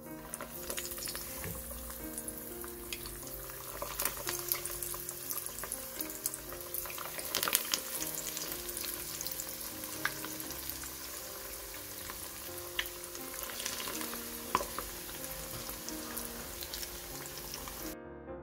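Breaded chicken pieces frying in hot oil in a frying pan: a steady sizzle with frequent crackles and pops, starting as the first piece goes in and cutting off abruptly near the end. Soft background music plays underneath.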